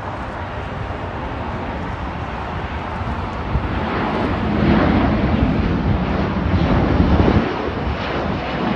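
Engines of a twin-engine jet airliner at takeoff power as it climbs out after lift-off: a deep, rumbling jet roar that swells from about three seconds in and is loudest in the second half.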